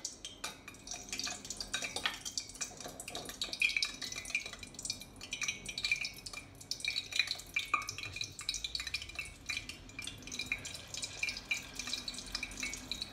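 Hot oil sizzling and crackling in a saucepan around a cherry tomato deep-frying in it: a dense, irregular spitting that goes on steadily.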